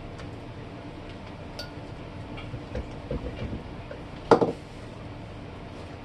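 Light metal clicks and clinks from an antique Westinghouse table fan's motor housing and small tools being handled, then one louder metallic clank about four seconds in that rings briefly.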